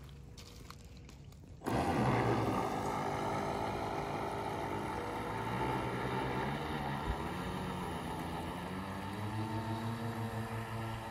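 A 3D-printed RC jet boat's twin motor-driven impellers start suddenly about two seconds in and run on as the boat pulls away. It makes a steady whine of several stacked pitches that drift up and down.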